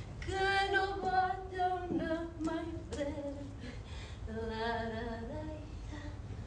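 A woman singing unaccompanied, held notes in two phrases with a short break between them. A couple of sharp clicks come in the middle of the first phrase.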